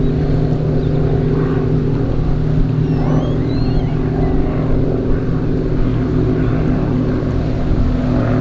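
Offshore racing powerboat's engines running flat out at a steady speed: a loud, even drone that holds one pitch throughout.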